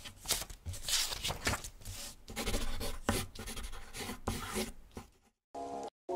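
A quick, irregular run of scratchy rubbing strokes, like writing or scribbling on a surface, that stops about five seconds in. After a short break, music with steady ringing notes starts near the end.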